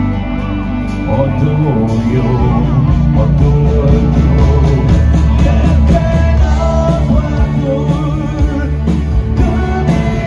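Rock band playing an instrumental passage, with a melody line over bass and regular drum beats.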